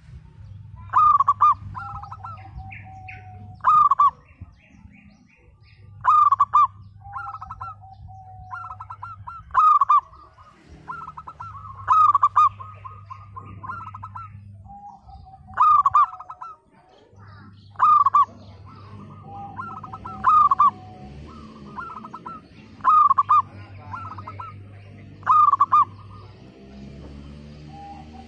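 Local zebra dove (perkutut) singing its cooing song over and over: loud phrases every one to three seconds, each a quick run of clipped coos, several ending in a lower drawn-out note.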